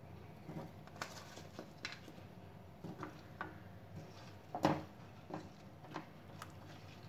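Pear slices dropped into sugar syrup in a nonstick pan, then stirred with a plastic spoon: scattered soft plops and clicks of the fruit and spoon against the pan, about one or two a second, the loudest knock a little past the middle.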